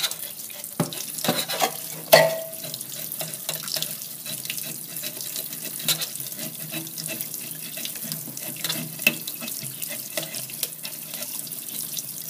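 Tap water running into a stainless-steel sink while a chef's knife scrapes the scales off a small rockfish, many short scraping clicks over the steady flow, with one sharper click about two seconds in.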